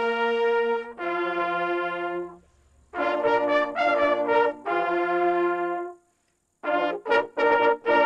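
A group of hunting horns playing together in harmony: two long held chord phrases separated by a short break, then quick, repeated short notes near the end.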